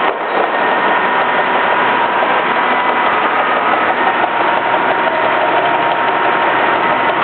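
Automatic carton-labelling machine running: a steady mechanical drone from its conveyor and applicator motors, with a faint, even whine running through it.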